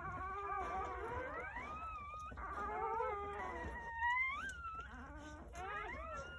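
Newborn Jindo puppies crying: high, wavering squeals that overlap and slide up and down in pitch, with a louder rising squeal about four seconds in.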